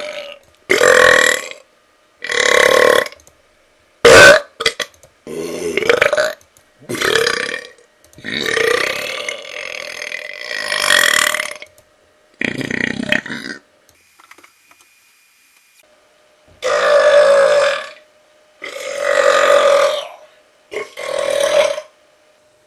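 A man belching over and over on purpose: about ten separate loud burps with short pauses between them. One long, drawn-out belch comes near the middle, and there is a longer pause about two-thirds of the way through.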